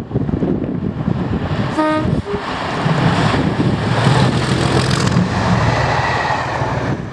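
Class 37 diesel locomotive sounding a short two-note horn about two seconds in, then passing close by under power, its English Electric V12 diesel engine working hard with the loud thrash and clag typical of the class. The engine sound builds to a peak as the locomotive passes and eases off near the end as the coaches follow.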